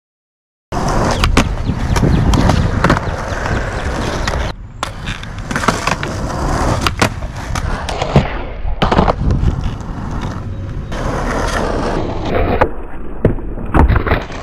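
Skateboard wheels rolling on asphalt and concrete, with sharp clacks of the tail popping and the board landing again and again, and the trucks grinding on a concrete ledge near the end.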